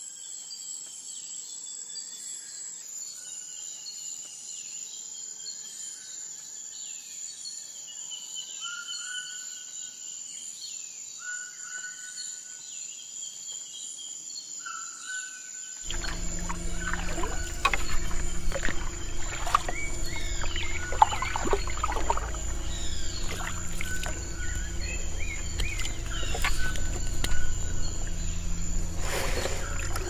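Rainforest ambience: an insect pulsing high and steady, a little under twice a second, with birds giving short whistled calls. About halfway through, background music with a low steady bass comes in over it.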